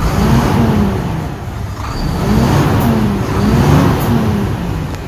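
Scania 420 hp Super 13-litre inline-six diesel truck engine running and being revved a few times, its roar rising and falling in pitch.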